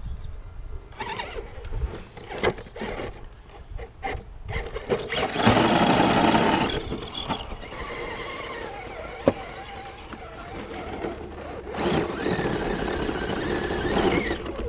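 Axial SCX10 RC crawler's electric motor and geared drivetrain whining as it drives, the pitch rising and falling with the throttle. It is loudest around six seconds in and again for the last few seconds, with a single sharp click a little after nine seconds.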